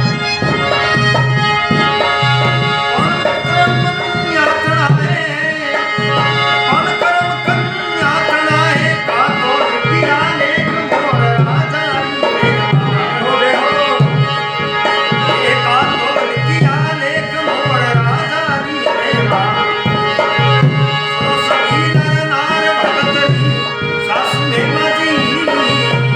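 Devotional bhajan music: a tabla plays a steady, evenly repeating rhythm under sustained held notes, with a gliding melody line on top.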